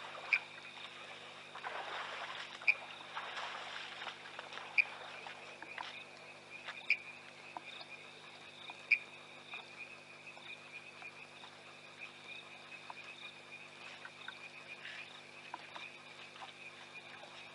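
Night chorus of frogs calling at a waterhole, a steady high pulsing trill, with one loud, short call repeating about every two seconds over the first nine seconds.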